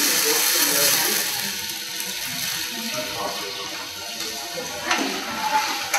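Brandy and triple sec sizzling and boiling in a hot sauté pan as the sauce flames, a steady hiss that is loudest at first and dies down over the next two seconds. A single knock near the end.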